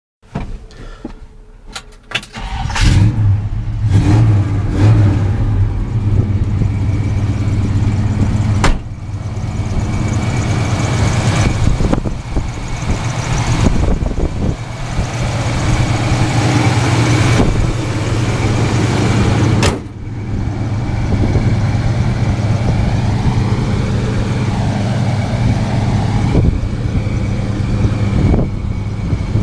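1970 Chevrolet C10 pickup's V8 engine catching and starting about two and a half seconds in, revving a few times, then running steadily. Twice the sound breaks off abruptly and the engine picks up again. In the last part the truck is running on the road.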